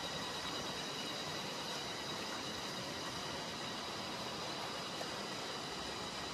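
Steady rushing of a fast mountain stream, an even hiss with a few faint steady high tones above it.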